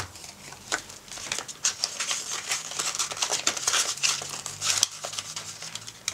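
Clear plastic binder pockets and paper crinkling and rustling in irregular handling noises as the pages of a ring-bound cash-envelope binder are turned and shuffled by hand.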